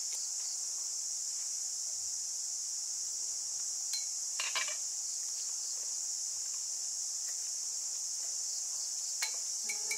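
Steady high-pitched insect chorus. A few light clicks and clinks of chopsticks against a metal cooking pot come about four seconds in and again near the end, and music begins at the very end.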